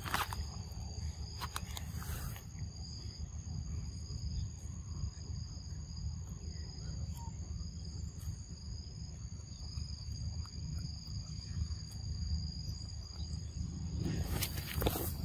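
Insects chirring steadily at two high pitches over a constant low rumble, with short bursts of noise about a second and a half in and again near the end.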